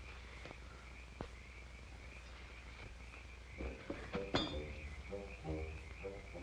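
Frogs croaking in a quick repeating run of calls that starts a little past halfway, over a constant high-pitched chirring of night creatures, with a few sharp clicks.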